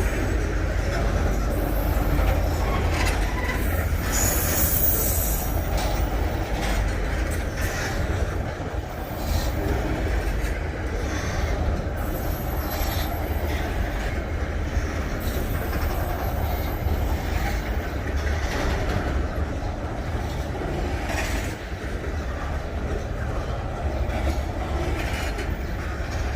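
Freight train cars rolling past on the rails: a steady rumble of wheels on track, with scattered clicks and wheel squeals.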